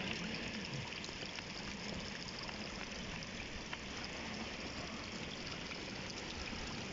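Rain falling steadily on wet, muddy ground: an even hiss with a few faint ticks.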